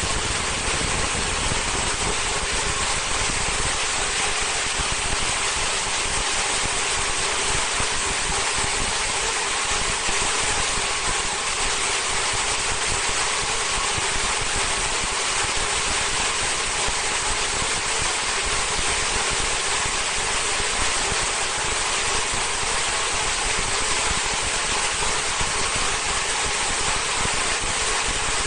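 Vertical high-speed film slitter-rewinder running at speed, with film winding onto the rewind shafts: a steady, even running noise that holds without change.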